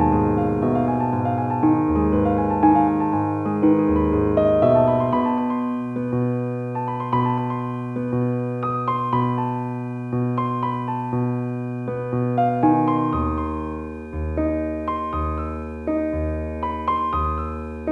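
Slow, gentle piano music: soft notes played over held chords, with the bass note changing twice.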